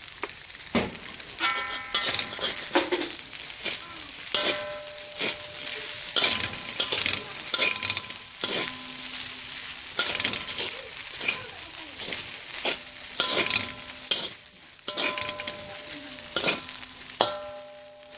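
Fried rice with shrimp sizzling in a hot pan while a spatula stirs and scrapes it, with frequent knocks against the pan. Several of the knocks leave a short metallic ringing tone.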